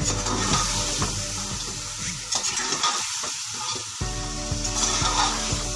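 Chicken, tomato and potato masala sizzling as it is fried down (bhuna) in an aluminium pot, with a metal spoon stirring and scraping against the pot. The masala is nearly cooked through, ready for the rice to go in.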